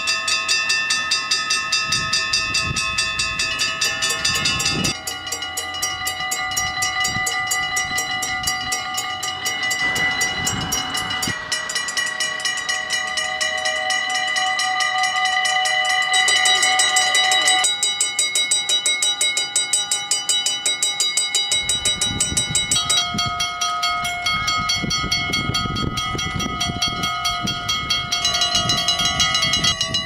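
Dutch level-crossing mechanical bells ringing with rapid, continuous strokes. A series of different crossings' bells, each ringing at its own pitch, is cut together, with an abrupt change about every five or six seconds.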